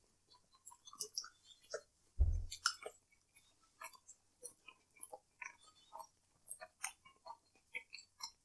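Close-miked chewing and wet mouth sounds from eating: a scattering of small smacks and clicks, with one dull low thump a little over two seconds in.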